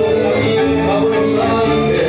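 Live tango quartet of bandoneon, violin and classical guitar playing, with notes held for about half a second at a time.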